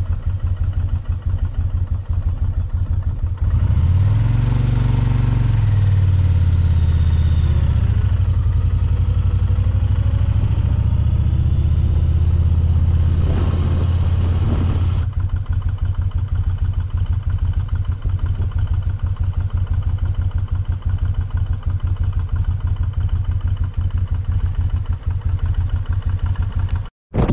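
Motorcycle engine idling, then pulling away about three seconds in, rising and falling in pitch through the gears before settling into a steady run at road speed. The sound breaks off for an instant near the end.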